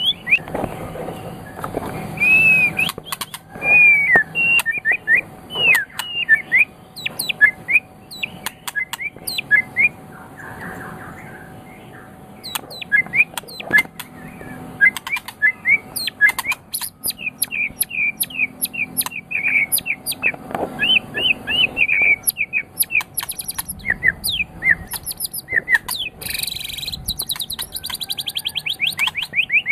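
White-rumped shama of the Medan type (murai batu Medan) singing a varied song: short whistled and slurred notes mixed with many sharp clicks, and a fast, rapidly repeated trill near the end.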